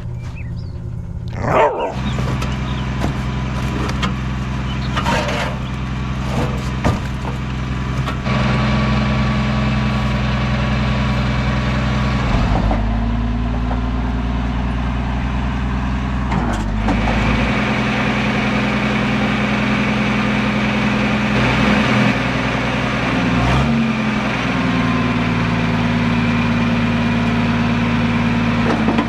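Diesel engine of a Lull telehandler running, its speed picking up about eight seconds in, then dipping and recovering several times as the machine works.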